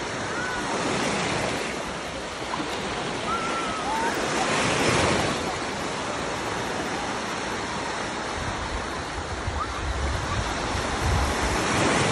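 Small sea waves breaking and washing through shallow water at the shoreline, the wash swelling and easing a few times. Wind buffets the microphone with a low rumble in the second half.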